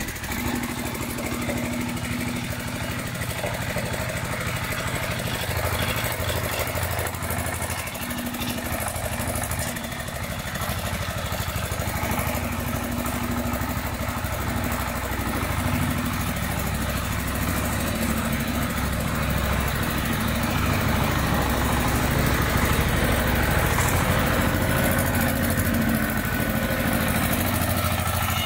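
Mini four-wheel-drive tractor with a front loader, its small engine running steadily as it is driven about.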